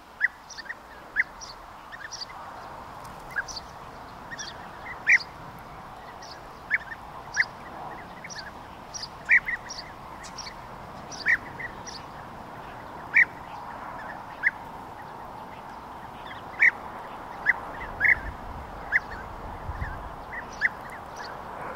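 European bee-eater calls: short, sharp calls repeated at irregular intervals, a second or two apart, over a steady background hiss.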